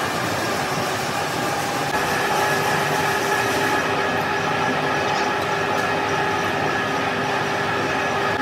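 A metalworking machine running steadily: a constant mechanical rumble with several steady whining tones, which grow stronger about two seconds in.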